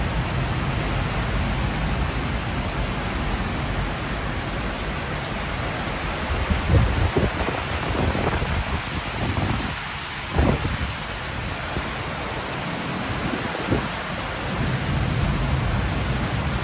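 Heavy rain pouring steadily in a thunderstorm, a dense even hiss. A few short, low thumps break through it about a third of the way in, in the middle and again later.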